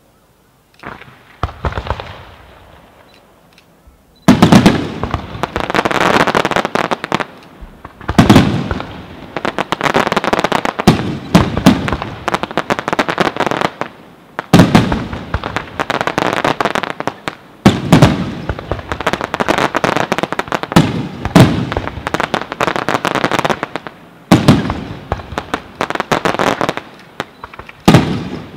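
Aerial fireworks shells bursting in a rapid barrage. After a quiet start and a few bangs about a second in, a loud bang comes every three to four seconds from about four seconds on, each followed by a dense rattle of small crackling reports.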